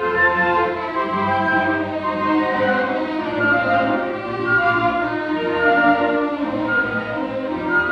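Full orchestra playing a waltz, led by bowed strings (violins, cellos and double basses), in sustained, continuous phrases.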